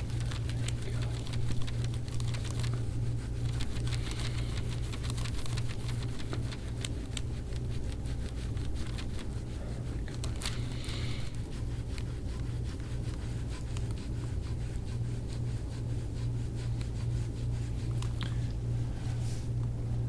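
A steady low hum with faint, repeated scraping strokes of a gua sha tool drawn over oiled skin on a man's back.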